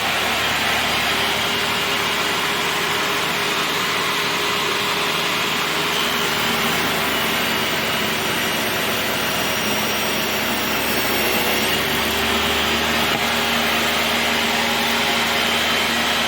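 Hyundai HYTS1800E 1800 W table saw running steadily at full speed, its motor and 250 mm blade giving a loud, even whine.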